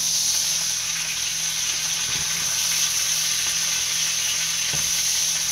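Skin-on chicken thighs sizzling steadily in butter in a hot skillet as they brown, with a low steady hum underneath. Two faint knocks come about two seconds in and again near the end.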